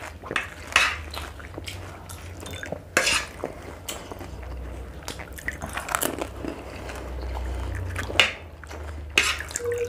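Eating at the table: a metal spoon clinking on a plate and the crunch of bites into crisp pani puri shells, with chewing, about five sharp clinks and crunches a couple of seconds apart over a low steady hum.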